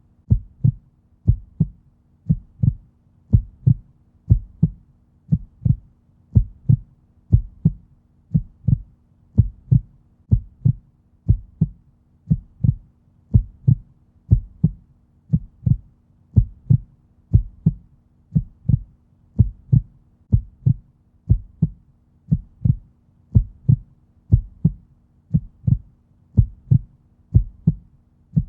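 Heartbeat sound: a slow, steady lub-dub rhythm of low, soft thumps repeating evenly, over a faint steady hum.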